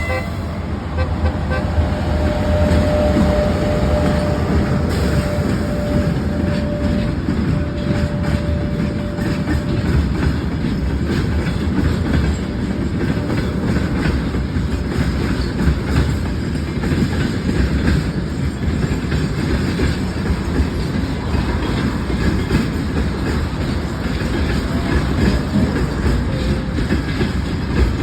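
Freight train hauled by a 2ES5K two-section electric locomotive, running with a steady rumble of wagons and clickety-clack of wheels over rail joints. A thin steady whine sounds over roughly the first ten seconds.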